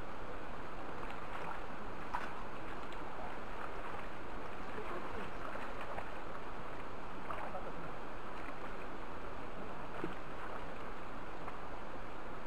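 Steady rush of a shallow river flowing, with water stirred around people wading in it.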